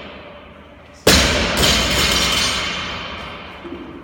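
A loaded barbell dropped from overhead onto the gym floor about a second in: a loud crash, a second bang as it bounces half a second later, then the weight plates ringing and rattling as they settle and fade.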